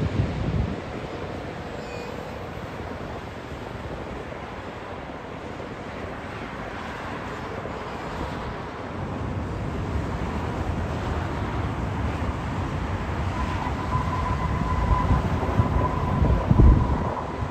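Jet engine noise of a Boeing 787 Dreamliner: a steady rush that grows louder in the second half, with a faint steady whine coming in about three-quarters of the way through. Wind buffets the microphone.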